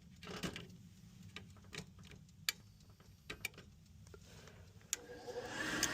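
Several light separate clicks, then near the end the furnace's blower motor is energized and a hum builds up and holds. The motor is drawing about 8.5 amps but not turning, the stall of a blower motor with a failed run capacitor.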